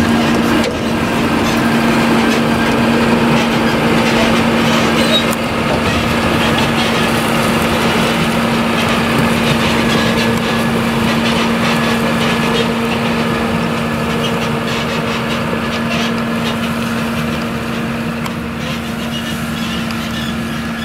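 Claas Jaguar 970 forage harvester's MAN V8 and a tractor running steadily while chopping sorghum: a constant drone with a steady hum through it, slowly fading as the machines move away.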